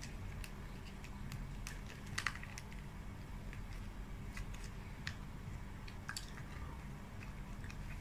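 A metal spoon scraping and clicking against a plastic cup while someone eats ice cream with chocolate sauce, with scattered small clicks and wet mouth sounds of eating; one click about two seconds in is louder. A steady low hum lies underneath.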